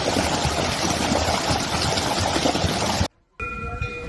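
Mountain valley stream rushing over rocks, a dense steady wash of water that cuts off suddenly about three seconds in. Just before the end a bell starts ringing with a clear held tone, the start of a temple wind bell's chime.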